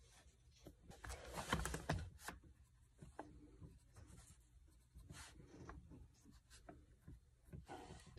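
Pencil writing on the pages of a paperback sudoku book: faint, short scratching strokes, with a louder rustle about a second in.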